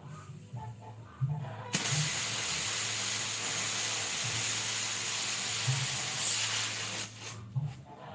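Loud hiss of pressurised gas blowing through an open refrigerator's refrigerant tubing, flushing the lines before they are refitted and vacuumed. It starts suddenly about two seconds in and cuts off about five seconds later.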